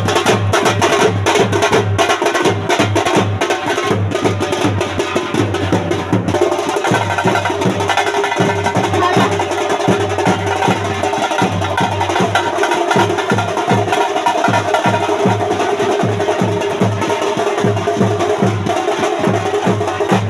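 Music carried by a steady, fast drum beat, with a held melody line coming in about six seconds in.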